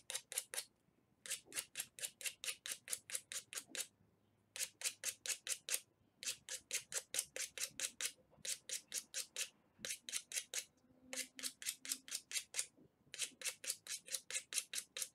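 Quick back-and-forth scraping strokes, about five a second, as the inside of a small pipe fitting is scrubbed clean for brazing. The scrubbing comes in runs of a couple of seconds with short pauses between them.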